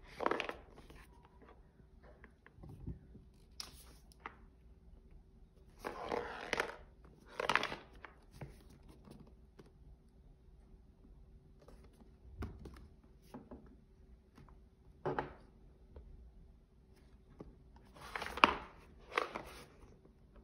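Cardboard retail box handled and turned over in the hands: short, irregular scrapes and rustles of fingers and palms sliding on the card, the loudest a cluster near the end.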